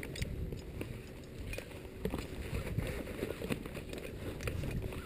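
Crampon points clicking and scraping on granite and snow, with climbing gear clinking, in short scattered clicks over a steady low rumble of wind on the microphone.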